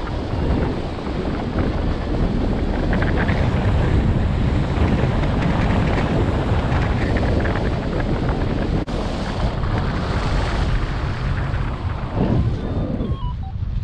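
Airflow buffeting the camera microphone of a paraglider in flight: a steady, loud rush of wind noise, heaviest in the low end, easing a little in the upper range near the end.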